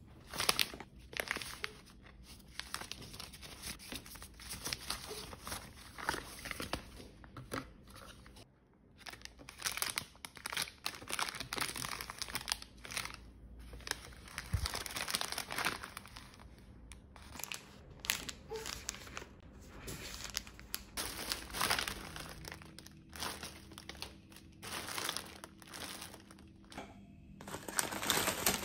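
Plastic and paper packaging crinkling and rustling as items are unwrapped and handled by hand, in irregular bursts with a few short lulls.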